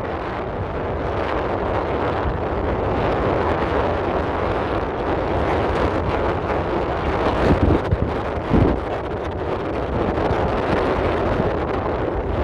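Strong sea wind buffeting the microphone in a steady roar, with heavier low gusts about seven and a half and eight and a half seconds in.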